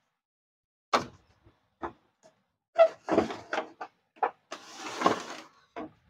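Plastic rear cabinet of a Videocon ultra-slim CRT television being fitted back on by hand: a series of sharp knocks and clicks, with a scraping slide of about a second about four and a half seconds in.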